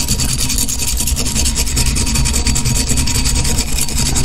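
Coarse sandpaper rubbed quickly back and forth along a glass bottle, a fast, even scratching rasp. The sanding scuffs the smooth glass into a rough patch for striking matches.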